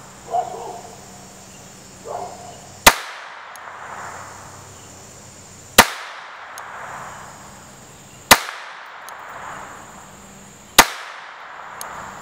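Sterling Arms .25 ACP pocket pistol firing four single shots, spaced about two and a half to three seconds apart. Each sharp crack is followed by a short echo.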